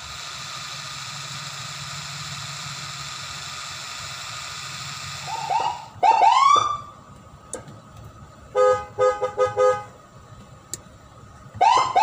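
Whelen siren sounding through its box-type speakers. A steady hiss runs for about six seconds. Then come quick rising whoops about six seconds in, a burst of short rapid horn-like beeps around nine seconds in set off from the car's horn button, and more rising whoops at the end.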